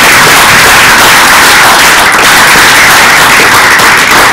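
Audience applauding loudly and steadily.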